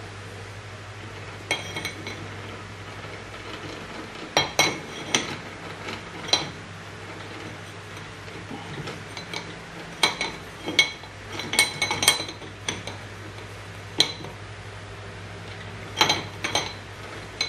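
Irregular metallic clinks and taps as a metal disc is fitted by hand onto the jaws of a small lathe's three-jaw chuck, over a low steady hum.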